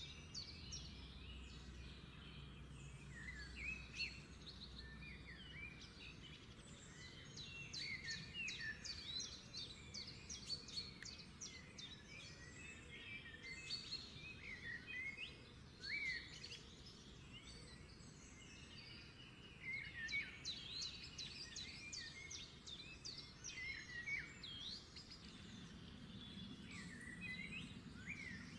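Many small birds chirping and twittering in quick, overlapping calls, over a faint low hum.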